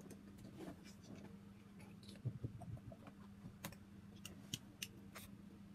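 Scattered faint clicks and taps of skincare bottles and tubs being picked up and put down, with a few sharper clicks in the second half, over a faint steady hum.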